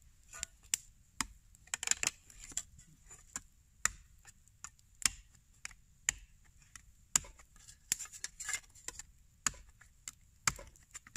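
Knife point being driven through a thin metal tin lid resting on a log, punching holes: an irregular series of sharp clicks and taps, roughly two a second.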